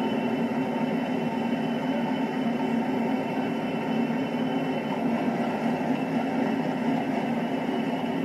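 Class 20 diesel-electric locomotive running steadily as it moves past with its coaches: an even engine drone with a thin, steady high whine above it.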